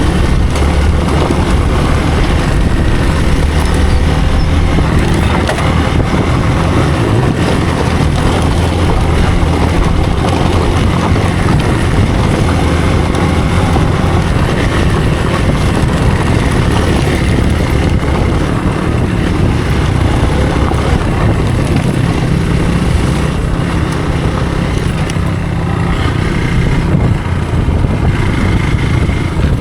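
Hero Xpulse's single-cylinder engine running steadily as the motorcycle is ridden over rough off-road trail.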